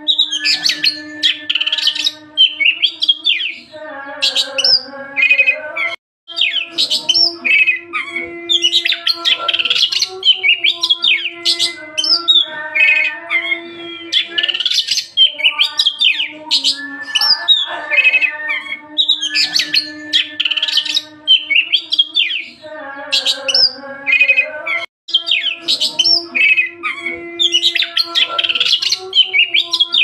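Oriental magpie-robin (kacer) singing continuously: a loud, fast, varied string of whistled and chattering phrases, over a lower layer of held tones. The sound cuts out briefly twice.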